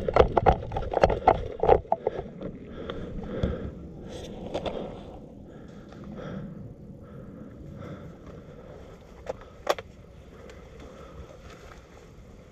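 Footsteps and body brushing through dry leaves and undergrowth, loud and fast for the first two seconds, then quieter rustling. A single sharp click about ten seconds in.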